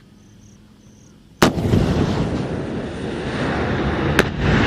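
A military weapon fires with a sudden, very loud blast about a second and a half in, followed by a long rolling rumble. A second sharp crack comes near the end.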